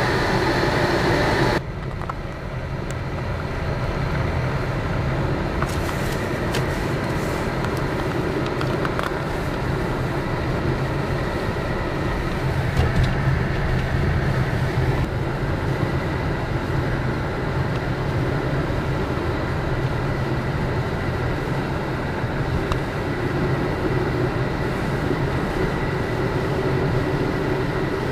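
Steady engine and tyre noise heard from inside a 2010 Chevy Cobalt's cabin while it drives at about 30 mph with the engine near 2,000 rpm. A louder rushing sound cuts off suddenly about a second and a half in.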